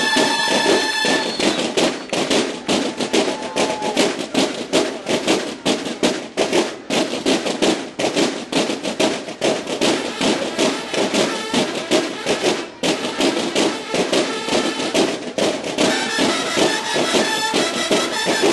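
Mexican banda de guerra of drums and bugles playing: the bugles hold a chord for about the first second, then a long passage of rapid, dense drumming, with the bugles coming back in near the end over the drums.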